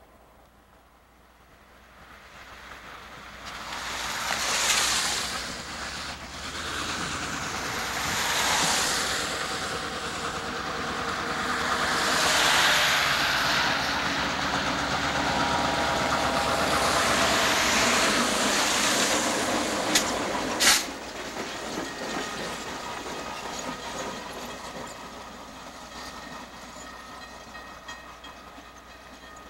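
Freight train rolling past on diesel locomotives and freight cars: a hissing rumble of wheels on rail that swells several times over about a second to twenty seconds. Two sharp clicks come near the loudest point. It then drops to a quieter steady sound with faint steady tones.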